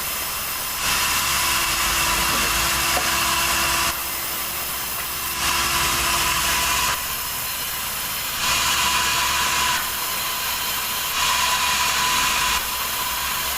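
Sawmill saw running and cutting through a log. The machine noise swells and eases in a regular cycle about every three seconds, with a steady whine under it.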